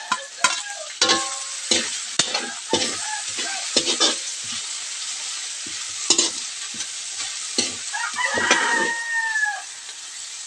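Spatula scraping and knocking against a wok as kangkong (water spinach) is stir-fried, over a steady sizzle of frying oil. A rooster crows once, about eight seconds in.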